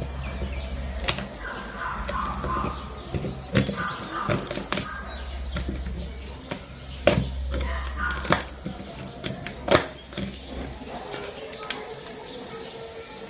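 Irregular sharp clicks and taps of small tools and phone parts being handled while a phone is taken apart, with brief scraping in between. A low steady hum runs underneath and stops about eleven seconds in.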